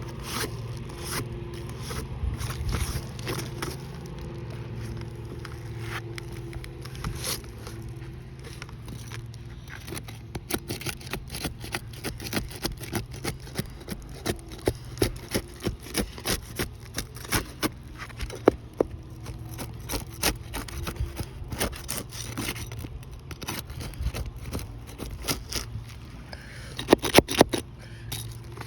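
Scraping and clicking of hand work on asphalt roof shingles, in quick irregular strokes through the middle and a few sharp, louder clicks near the end, over a steady low hum.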